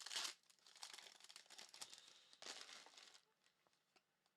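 Foil or plastic trading-card pack wrapper crinkling as it is handled and torn open, with louder rustles at the start and about two and a half seconds in. A few faint clicks of cards follow near the end.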